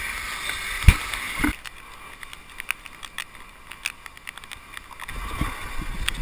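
Sit-ski running down dry-slope matting: a hiss at first, a sharp knock about a second in and another soon after, then scattered clicks as it slides. Low wind rumble on the microphone builds near the end as it picks up speed.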